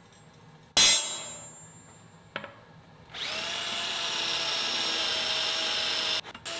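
A piece of steel is struck once with a loud, ringing clang about a second in. From about three seconds in a power drill runs steadily, then stops and starts again briefly near the end.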